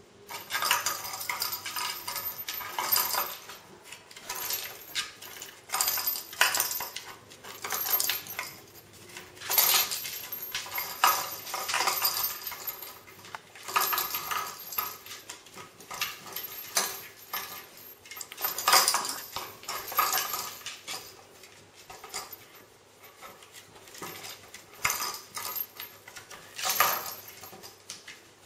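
Kittens pawing at toys inside a wooden peek-a-boo box with holes, making irregular bursts of clinking and rattling.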